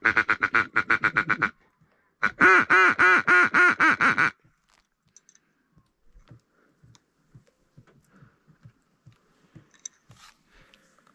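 Duck quacking: two fast, loud runs of quacks, the first about a second and a half long, the second about two seconds, a moment apart. Faint ticks and knocks follow.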